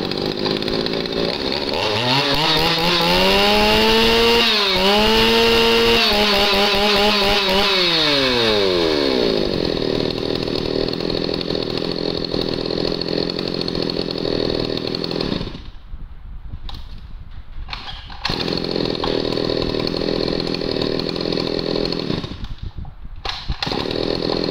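Shindaiwa 352 two-stroke chainsaw (35 cc) running. It is revved up about two seconds in, held at high revs for several seconds, then let fall back to a steady idle; the engine note is extremely crisp.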